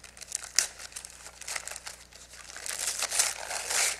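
Gift wrapping paper being crinkled and pulled off a present by hand: scattered crackles, then a denser, louder stretch of rustling in the last second and a half.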